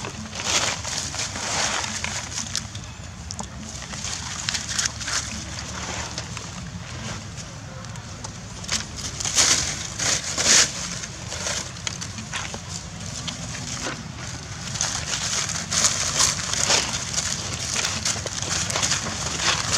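Dry fallen leaves crackling and rustling as a macaque rummages through and walks on the leaf litter. There are a few louder crunches about halfway through, over a steady low rumble.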